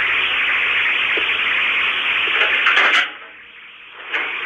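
Steady hiss from a doorbell camera's microphone, thin and tinny, with a few faint knocks. About three seconds in the hiss drops out for about a second, then comes back with a click.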